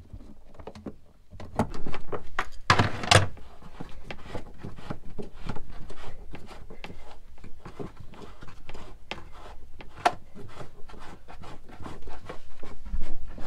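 A spanner and hands working a thru-hull nut loose from inside a boat's hull: an irregular run of clicks, knocks and scrapes, with a louder scraping rattle about three seconds in.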